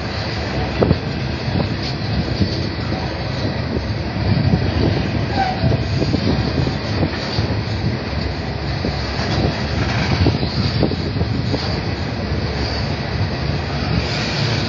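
Coal hopper wagons of a freight train rolling steadily past close by, their wheels clattering over the rails with frequent short knocks.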